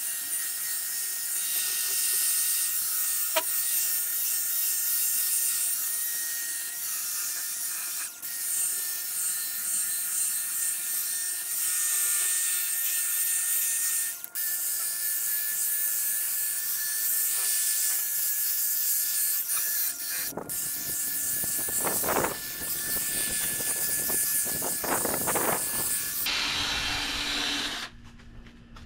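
Cordless drill spinning a 3000-grit sanding disc against a plastic headlight lens: a steady motor whine with the hiss of dry sanding. It drops out briefly three times and stops near the end.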